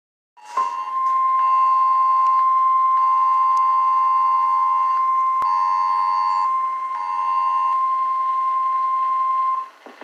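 Emergency alert tones for a tornado warning: the TV's Emergency Alert System attention signal holds a steady, loud tone, while a phone's Wireless Emergency Alert tone sounds over it in long and short on-off beeps. Both stop abruptly near the end, with a single click about halfway through.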